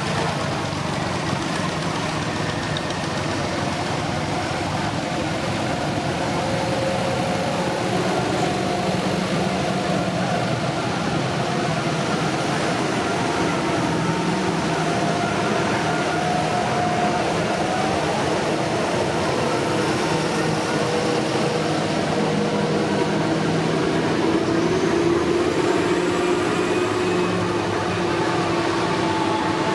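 Diesel tractor engines running as tractors drive past one after another: a small older Massey Ferguson, followed by large modern Fendt and John Deere tractors. The engine drone is steady, and its pitch shifts as each machine passes.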